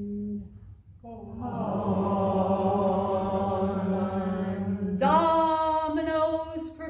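Call-and-response chanting. A woman's sung "Almond" ends at the start. From about a second in, a group of voices sings back a long, drawn-out unison "Almond". About five seconds in, a single woman's singing voice comes in again on a higher note.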